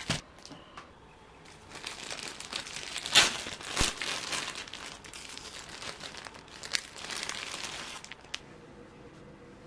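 Plastic bag of sliced bread crinkling as it is handled and set down on a wooden table, with the loudest rustles about three to four seconds in and a couple of light clicks near the end.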